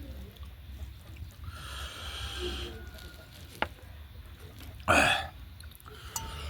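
Close-up eating sounds: chewing and mouth noises, with a sharp click a little past halfway and a short, loud, noisy burst of breath or slurping about five seconds in, over a steady low hum.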